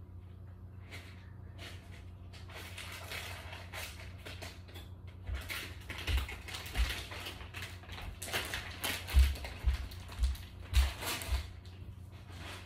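Close handling noise: rustling and scratching, with several dull low thumps in the second half over a steady low hum.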